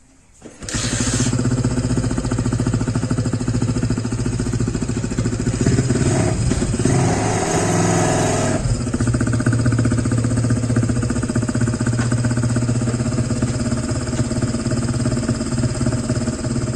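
Custom chopper motorcycle engine starting about half a second in, then idling with a steady pulsing beat. Around the middle a louder, higher sound rides over the idle for about three seconds and stops abruptly.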